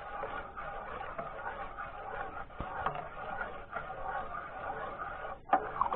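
A spoon stirring salt brine in an enamel pot, with light scraping and a few clinks against the enamel, and a sharper clink near the end.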